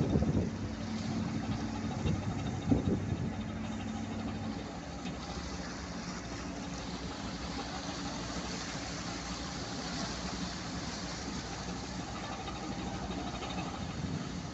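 Cargo ship's engine running as its propeller churns muddy water at the stern, a low steady hum that drops away about four and a half seconds in and leaves a steady rushing noise. There is a sharp knock about three seconds in.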